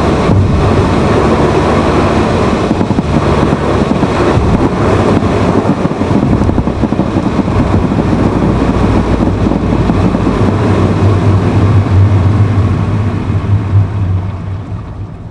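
Steady running noise of a Honda Fit (GE8) heard from inside the cabin, recorded to capture an intermittent abnormal noise the owner could not reproduce at the dealer. A low hum grows stronger about two-thirds of the way through, and the sound fades near the end.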